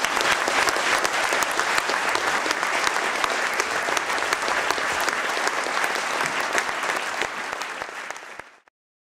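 Audience applauding: many hands clapping, dying away near the end and then cutting off abruptly.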